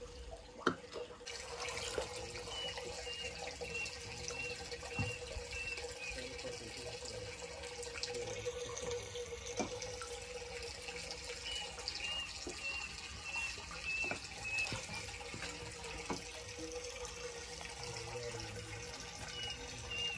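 Water running and splashing into a fish tank, swirling around a steel plate held in it, over a steady hum. A bird calls in runs of short, evenly repeated high notes.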